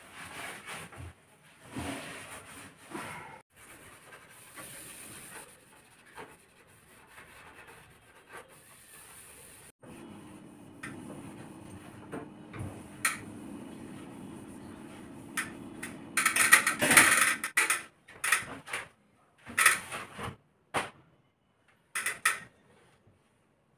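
Cloth wiping and rubbing on kitchen cabinet shelves and doors, with scattered knocks from the cabinet. A steady low hum runs for several seconds in the middle, and the loudest stretch is a short cluster of rubbing and knocking about two-thirds of the way in.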